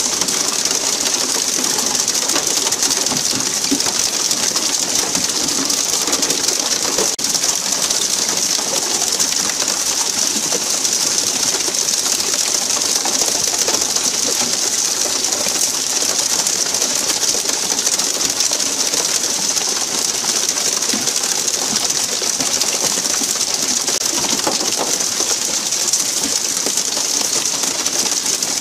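Steady hiss of the tuna boat's water sprayers jetting spray onto the sea surface beside the hull. The sound holds at an even level throughout.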